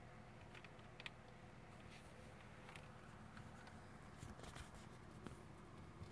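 Near silence, with faint rustling and a few light scattered taps and scratches, a small cluster of them about four seconds in: kittens scuffling and pawing on a towel.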